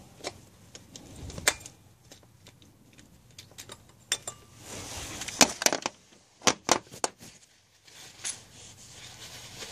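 Scattered sharp metallic clicks and clinks of hand tools and metal engine parts being handled while a pulley is refitted, with a few louder knocks over the middle of the stretch.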